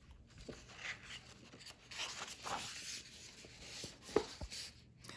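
A page of a picture book being turned by hand, the paper rubbing and sliding faintly, with a couple of small taps about four seconds in.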